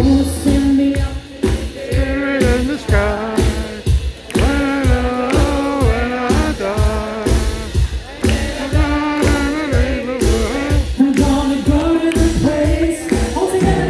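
A male pop singer singing live into a handheld microphone with a live band behind him, the vocal line held and bending over a steady drum beat.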